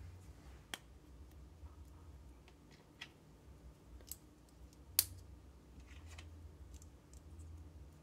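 LEGO plastic pieces being handled and pressed together: a few scattered light clicks, the sharpest about five seconds in.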